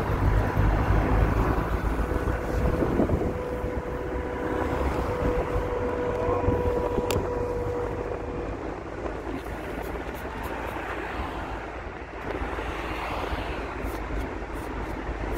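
Steady road and engine noise of a moving car, a low rumble that eases slightly about halfway through. A faint hum holds underneath, and there is a single sharp click about seven seconds in.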